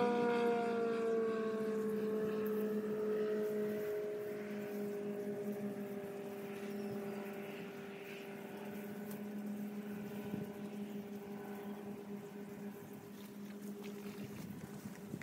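A distant droning tone with overtones, slowly falling in pitch and fading away.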